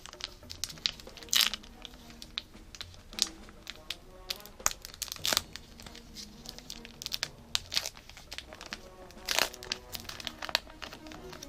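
Yu-Gi-Oh booster-pack wrappers crinkling and trading cards being handled: an irregular run of sharp crinkles and clicks, loudest about a second and a half in, in the middle and near the end.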